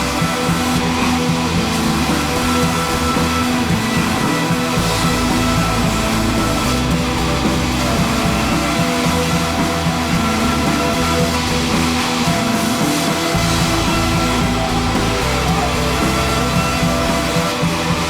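Background music with a steady level.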